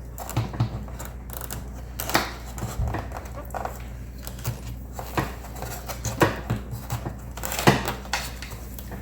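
Irregular clicks and knocks of hands working a rubber battery hold-down strap and its buckle around a battery in a plastic tub, with a steady low hum underneath.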